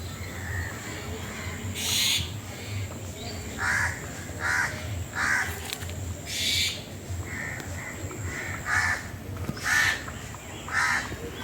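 Bird giving harsh, crow-like cawing calls, about ten short calls spaced unevenly, some higher and hissier than others.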